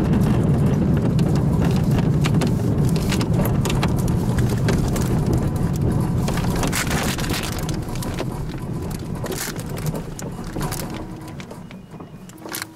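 Glider's landing wheel rolling over grass: a steady low rumble shot through with knocks and rattles from the airframe, fading over the last few seconds as the glider rolls to a stop.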